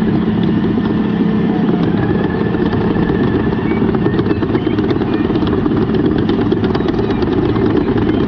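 A small motor running steadily and loudly without a change in speed.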